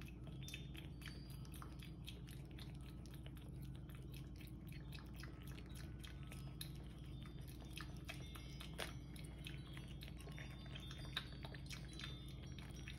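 A tabby kitten chewing cooked shrimp from a plate: faint, irregular wet clicks of eating.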